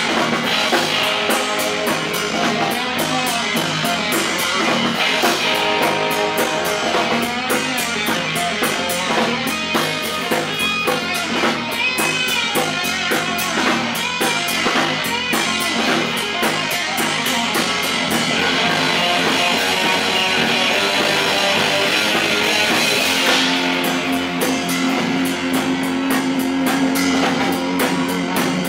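Live rock band playing an instrumental passage on electric guitars and drum kit, heard straight from the stage amps and monitors rather than the mixed PA. A held low guitar note comes in near the end.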